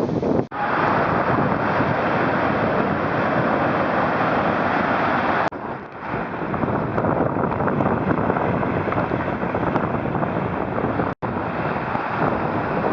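Wind buffeting the microphone over the steady rush of breaking surf. The sound cuts out abruptly about half a second in, near the middle and shortly before the end.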